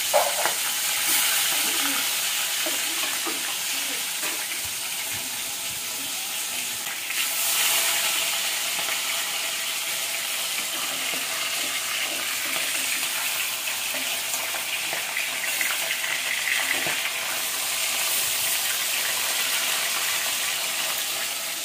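Foli fish pieces, salted, deep-frying in hot oil in a steel kadai: a steady crackling sizzle that flares as a piece goes into the oil at the start, with a metal spatula scraping and turning the fish.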